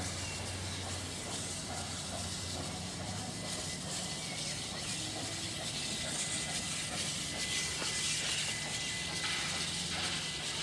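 NSW 36 class 4-6-0 steam locomotive running slowly with a train of carriages, giving a steady hiss of steam over a low rumble, with no distinct chuffing beat.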